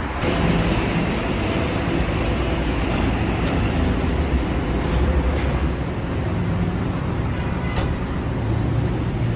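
Steady road traffic noise: vehicle engines running with a low hum that swells and eases a little.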